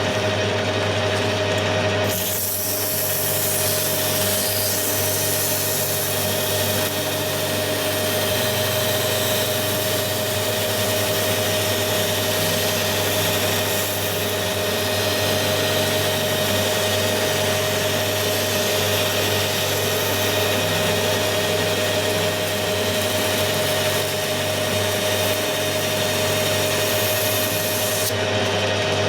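Metal lathe running with a steady hum while abrasive paper is held against the spinning steel drive shaft to sand it down to a slide fit; a loud rushing hiss starts about two seconds in and stops near the end.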